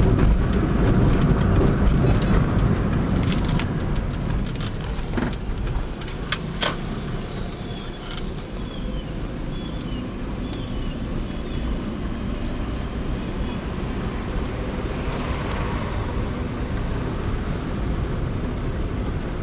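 Car engine and road noise heard from inside the cabin while driving along a city street: a steady low rumble, louder for the first few seconds and then settling lower. A few sharp clicks come about three to seven seconds in.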